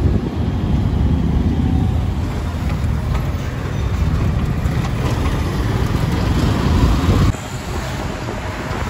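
Road noise from a moving two-wheeler in city traffic, with wind rumbling on the microphone. The rumble drops off suddenly about seven seconds in.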